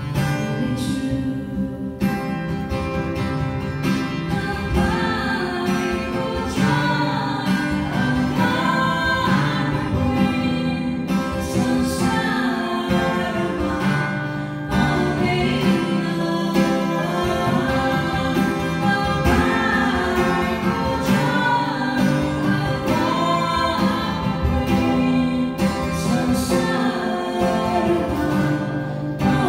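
A woman singing a worship song through a microphone, accompanied by an acoustic guitar. The guitar plays alone at first, and the singing comes in about four seconds in.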